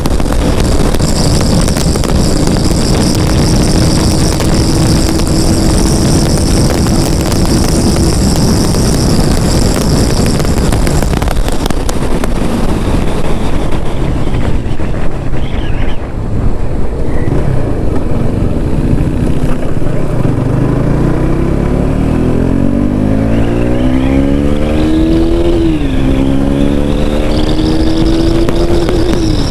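KTM RC 390's single-cylinder engine pulling hard at highway speed, buried in heavy wind rush. The engine note holds fairly steady at first, then climbs through the revs, drops sharply at an upshift near the end and starts climbing again.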